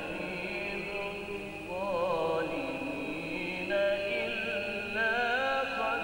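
A man reciting the Quran in the melodic, ornamented tilawah style: short phrases with wavering melismatic turns, joined by lower held notes. It is an aşır passage recited with the variant readings combined (vücuh).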